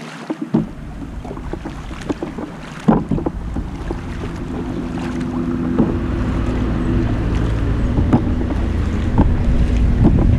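Kayak paddle strokes dipping and splashing, with water lapping at the hull. Wind buffets the microphone more and more strongly, and a steady low drone builds from about four seconds in.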